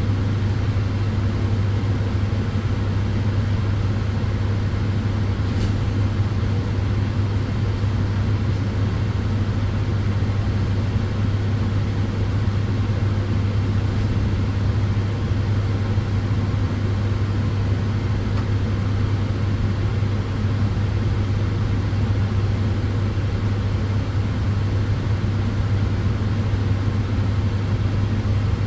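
Solarium sunbed running: an even, steady rush of noise over a strong constant low hum.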